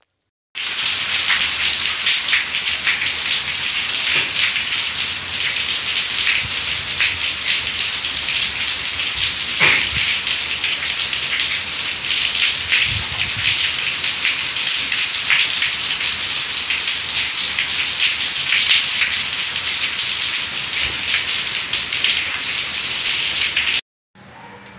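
Heavy rain falling steadily: a dense hiss of countless drops, with one sharper tap standing out about ten seconds in.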